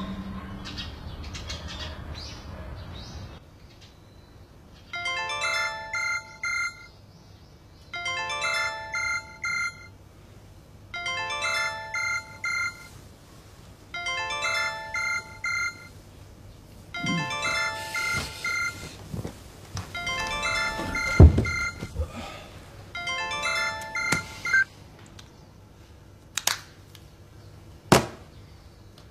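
An electronic telephone ringtone rings seven times, each ring a short burst of several tones, about three seconds apart. A sharp thump sounds partway through, and there are two clicks near the end.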